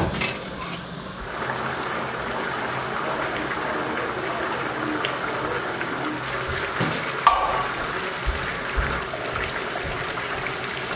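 Rice and water boiling hard in a large pot of Uzbek plov (osh), a steady bubbling, with one sharp knock about seven seconds in.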